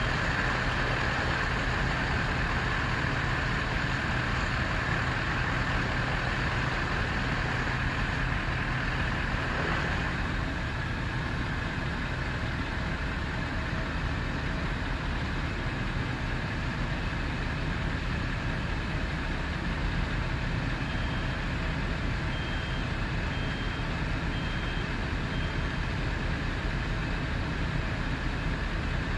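Fire apparatus engines running steadily, a continuous rumble whose low hum drops away about a third of the way in. Past the middle, a reversing alarm sounds about five short beeps, roughly one a second.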